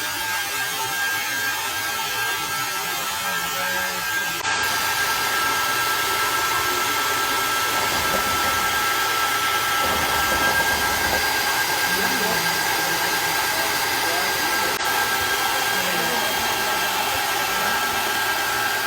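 Small electric motor of a remote-control spraying truck whirring steadily with a high whine and hiss, stepping up in loudness after a brief break about four and a half seconds in.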